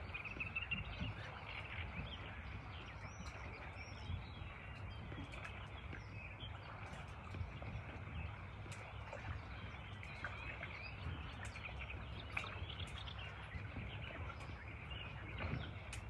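Birds chirping and singing in many short calls, over a steady low rumble.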